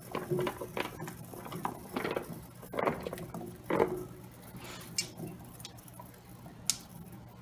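Baby carrots tumbling from a dish into a pan of broth and potatoes, a run of pattering knocks and small splashes for about four seconds. After that it goes quieter, with a few sharp clicks as a hand settles the carrots in the pan.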